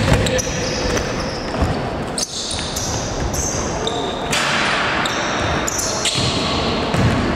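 Basketball game in a large sports hall: the ball bouncing on the court and sneakers squeaking on the wooden floor, with short sharp squeaks scattered through.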